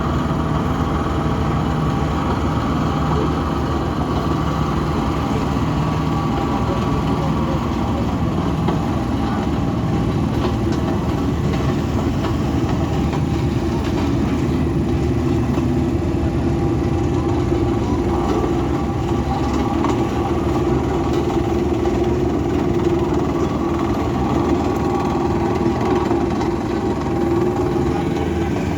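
Diesel engines of heavy vehicles running steadily, a continuous low rumble. A higher drone grows stronger about halfway through.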